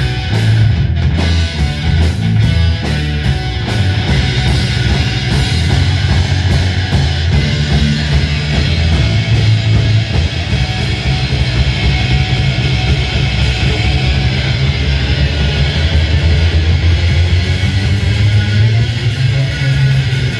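Live rock trio playing loud: distorted electric guitar, electric bass and drum kit, with a heavy bass line.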